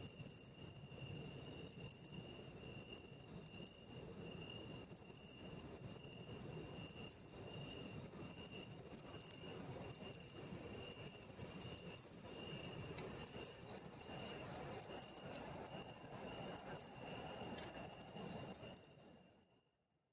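A matsumushi (pine cricket, Xenogryllus marmoratus) singing its 'chin-chiro-rin' song: short, high, clear chirps in quick clusters, repeating about once a second and stopping about 19 seconds in. A faint steady high tone continues underneath.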